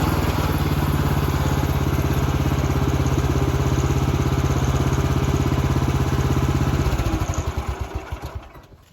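Woodland Mills HM130 Max bandsaw sawmill's engine running steadily, then shut off about seven seconds in, its firing slowing to a stop.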